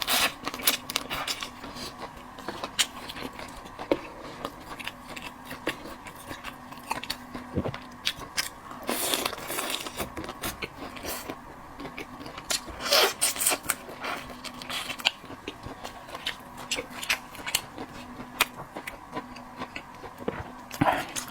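A person chewing and biting food close to the microphone: irregular wet mouth clicks and smacks, with a few louder bursts, over a faint steady hum.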